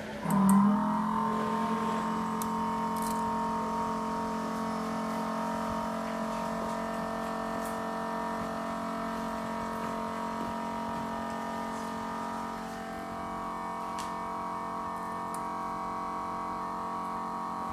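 Vacuum pump of an LCD separator machine switching on and running with a steady electric hum, loudest just as it starts.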